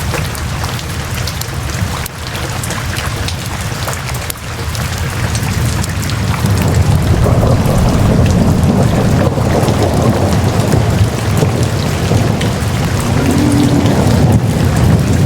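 Steady rain falling, with a low rumble of thunder that builds about six seconds in and rolls on.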